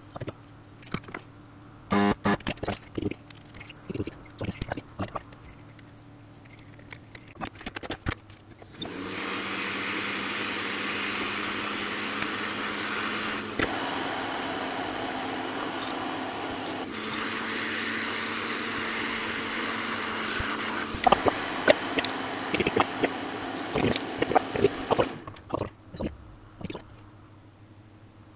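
Light clicks and taps of a circuit board and tools being handled on a workbench, then about sixteen seconds of a steady whooshing motor noise with a low hum. The motor noise stops abruptly, with sharp clicks over it near the end.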